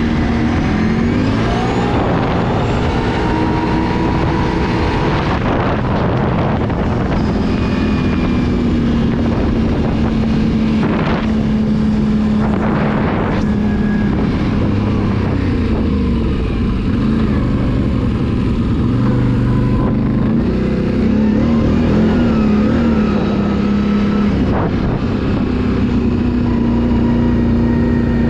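Can-Am ATV engine running steadily under way, its pitch dipping and rising briefly a couple of times as the throttle changes.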